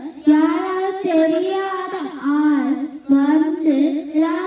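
A child singing a song in long, held phrases, with a short break for breath about three seconds in.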